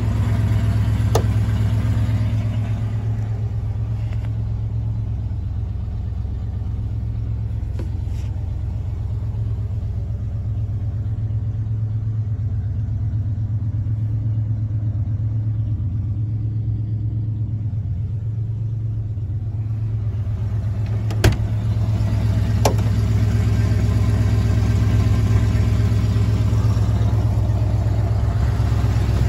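A 1985 Chevy G20 van's engine idling steadily with a low hum. The sound is duller while heard from inside the van's rear compartment for most of the middle, and there is a single sharp click about two-thirds of the way through.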